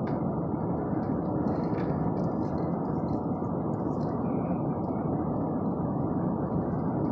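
Steady road and engine noise heard inside a moving car, an even rumble with no breaks.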